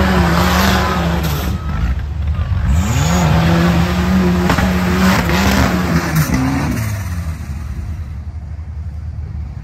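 Off-road race buggy's engine revving hard on the course: the revs dip, climb again about three seconds in and are held high with quick blips, then drop away and fade near the end.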